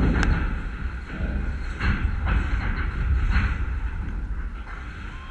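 Uneven low rumble of wind buffeting the camera microphone, with one sharp click just after the start and faint distant calls from the field.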